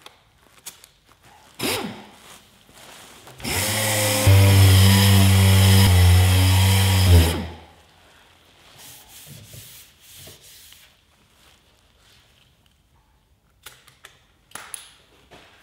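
Orbital sander with an 80-grit disc running against bare car body metal for about four seconds in the middle, a steady low hum under a hiss. It is feathering out grinding marks around a dent repair, giving the edge that filler goes on.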